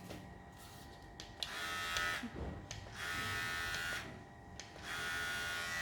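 Xiaomi Enchen cordless electric hair clipper switched on and off, its motor buzzing in three short runs: about a second and a half in, at about three seconds, and again from about five seconds on. It is being run for the first time out of the box to check that it works.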